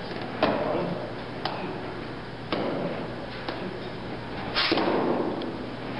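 Sharp slaps of hand strikes against a hand-held paper target, about five of them roughly a second apart, the loudest a little before the end.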